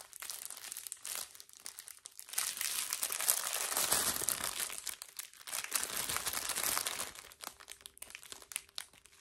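Clear plastic packet of small zip-lock baggies of round diamond-painting drills crinkling as it is handled and turned over, loudest in the middle few seconds.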